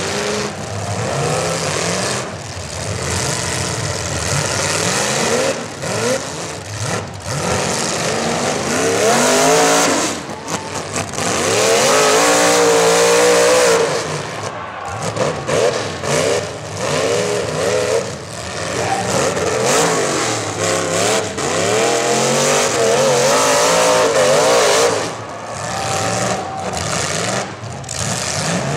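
Several demolition derby cars' engines revving, their pitches rising and falling over one another, with repeated sharp bangs as the cars ram each other.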